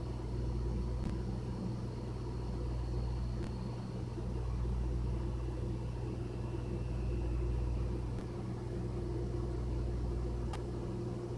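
Glass electric kettle heating water: a steady low rumble that swells and eases, with a few faint clicks.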